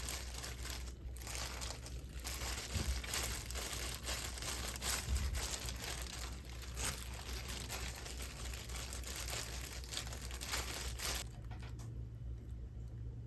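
Dry, crinkly material being crumpled and handled by hand, a continuous crackling of many small ticks over a low steady hum.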